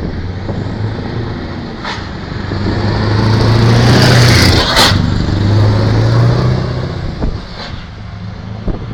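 Scania V8 truck engine driving past close by: the low engine note grows louder as the truck approaches, peaks with a brief rush of tyre and air noise about four to five seconds in, then fades as it pulls away.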